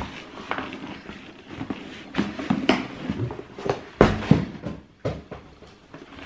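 Cardboard shoe boxes being handled: irregular rustles, scrapes and light knocks, with a heavier thump about four seconds in.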